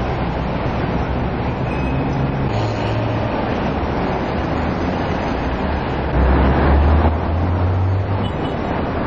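Street traffic: steady engine and tyre noise from cars passing on a city road, with a louder rumble of a vehicle going by close about six to eight seconds in.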